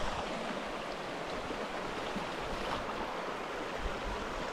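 Small stream rushing over a rocky riffle: a steady wash of flowing water.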